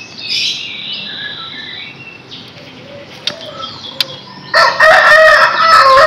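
Chirping birdsong, then about four and a half seconds in a loud burst of a caged white-rumped shama flapping and thrashing against the cage as it is grabbed by hand, with a loud harsh bird call over the flapping.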